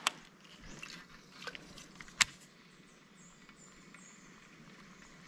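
A few sharp clicks from handling a baitcasting rod and reel: one right at the start, a fainter one about a second and a half in, and the loudest about two seconds in, over a quiet background.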